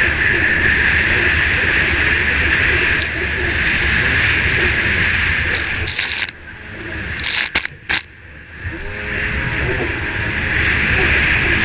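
Racing jet ski running at speed, heard from an onboard camera: steady engine noise mixed with wind and water spray. About six seconds in the sound drops away for a couple of seconds with a few sharp knocks, then picks back up.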